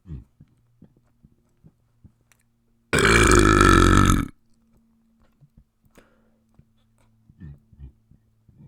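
A person burping: one long, loud burp about three seconds in, lasting about a second and a half.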